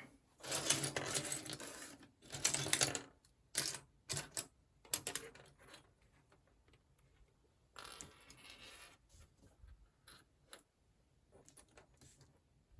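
Plastic building-block pieces being handled: rustling, with a scattering of sharp clicks and small clatters as parts are picked up and set down. The rustling is heaviest in the first three seconds and again about eight seconds in.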